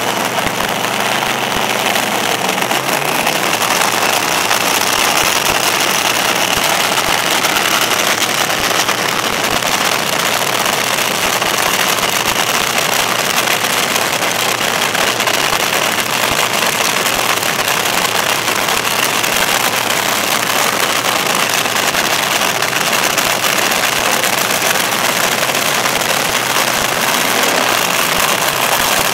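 Top Fuel dragster engine idling on nitromethane: a loud, steady, rough running noise that holds without revving throughout.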